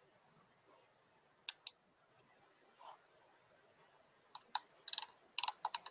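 Quiet clicks at a computer: two close together about a second and a half in, then a quick, irregular run of clicks through the last second and a half, over faint room hiss.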